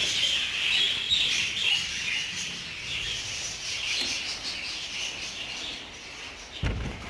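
Many budgerigars chattering and warbling together in a dense, continuous twitter that slowly fades, with one dull thump near the end.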